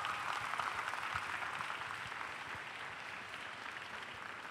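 A large audience applauding, the clapping slowly dying away.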